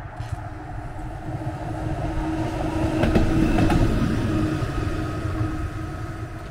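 Heritage electric tram passing on its rails, with a steady hum. The rumble swells to its loudest about three to four seconds in, then eases off.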